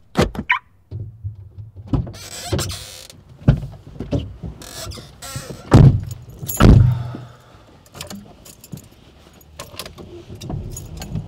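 People getting into a car: clicks and rustling as the doors open and they sit down, then two loud car-door slams close together about six and seven seconds in.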